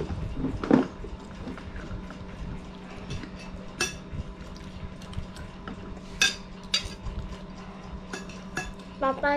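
A metal spoon scraping and clinking against a plate and a stainless steel tray during a meal, with a few sharp clinks scattered through, over a steady low hum.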